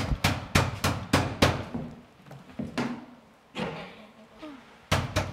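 Rapid knocking on a wooden door, about three to four knocks a second, stopping about a second and a half in. A few more single knocks follow, two of them near the end.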